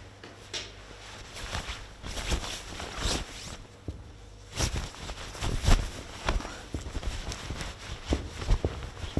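Foley footsteps: dress shoes stepping in place on a cloth-covered wooden board, irregular steps and scuffs that grow louder about halfway through.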